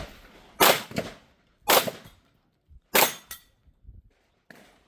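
Three pistol shots from an Open-division Glock firing handloaded ammunition, spaced a little over a second apart, each a sharp crack with a short echo.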